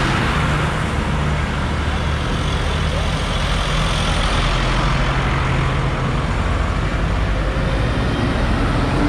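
Diesel tractor engines running steadily as a line of tractors drives past close by, one after another: a John Deere, then a blue Ford, then a red Massey Ferguson. A steady low engine hum sits over tyre and road noise.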